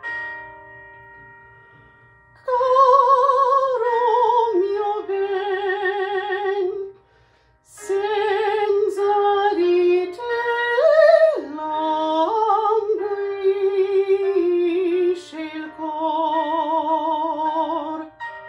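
A woman singing a classical song with strong vibrato over a recorded piano accompaniment, in three phrases with short breaks about halfway and near the end.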